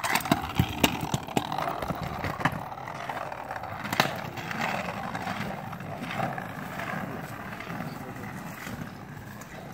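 Stunt kick scooter's hard wheels rolling over concrete sidewalk and asphalt, with sharp clacks and knocks. The loudest comes about four seconds in, the deck hitting the ground after a bunny hop attempt. The rolling fades as the scooter moves away.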